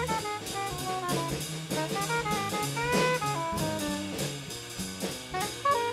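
Jazz saxophone playing a quick line of short notes over a drum kit and a moving bass line.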